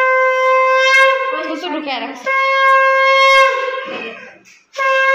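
Conch shell (shankh) blown in long, steady, single-pitched blasts: one of about two seconds, a second after a brief break, and a third starting near the end.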